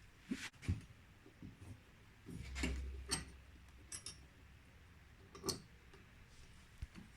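Small candelabra parts being handled on a workbench: a scatter of light clicks and knocks, with a longer clatter and low rumble about two and a half seconds in.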